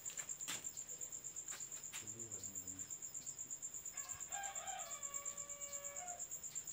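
Crickets chirping steadily in a fast, high pulsing trill, with a faint rooster crow about four seconds in that lasts about two seconds.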